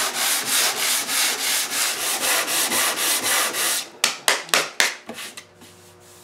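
100-grit sandpaper rubbed by hand back and forth across a teak-veneered desk top, a steady rasping at about three strokes a second while the old finish and discoloration are sanded off. About four seconds in, it gives way to a few sharper, quicker strokes, then dies down.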